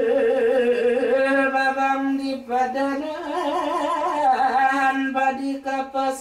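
A single voice singing unaccompanied in long held notes with quick wavering ornaments.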